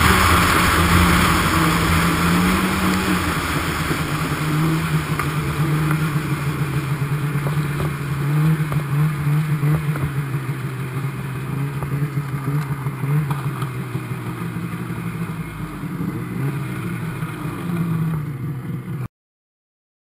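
800cc two-stroke snowmobile engine running under way, holding a fairly steady pitch with wind and track rush, heard from on the sled; it grows gradually quieter, then the sound cuts off suddenly near the end.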